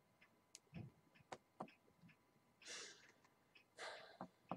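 Near-silent room with scattered faint clicks and two short breaths, about three and four seconds in.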